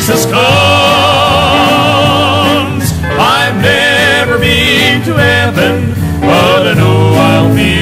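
Country gospel music: a wavering melodic lead in short phrases over steady accompaniment with low bass notes.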